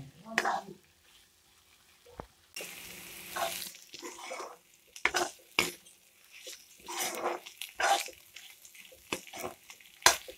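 Steel spatula scraping and knocking against a kadai in short, irregular strokes as chopped banana flower and goat fat are stir-fried, with a brief hiss about two and a half seconds in.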